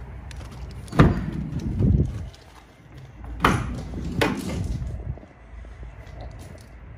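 Rear cargo doors of a Renault Master van being unlatched and swung open: a sharp clunk of the latch about a second in, then several more metallic clunks as the doors open.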